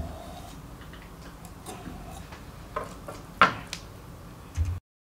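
Light clicks and knocks of a kitchen knife against a wooden cutting board while a whole sea bream is scored and handled, the sharpest knock about three and a half seconds in. A dull thump comes near the end, then the sound cuts out abruptly.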